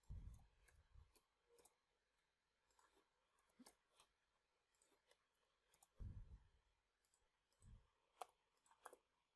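Faint computer keyboard keystrokes and mouse clicks, irregular and scattered, with a few soft low thumps.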